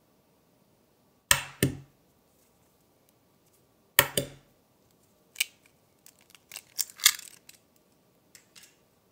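Eggs being cracked open over a bowl: two sharp cracks, about a second in and again about four seconds in, each a quick double knock. They are followed by a run of small clicks and crackles of shell.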